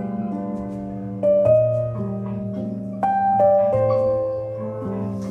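Background piano music: slow sustained chords that change every second or two.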